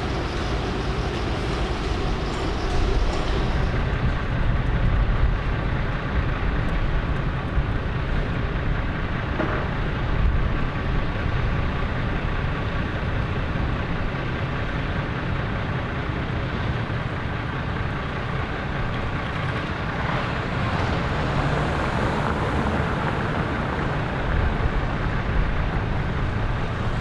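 Steady vehicle and street traffic noise with a constant low rumble.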